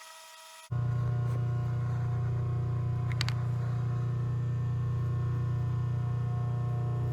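A steady low electrical hum that switches on abruptly about a second in and holds steady, from a piece of mains-powered shop equipment.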